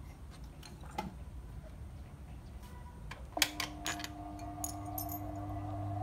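Small metal clicks and taps from handling the industrial sewing machine's presser foot and plate. About three and a half seconds in, a louder cluster of clicks, like a switch, sets off a steady electric hum that grows stronger near the end, with a faint rising whine.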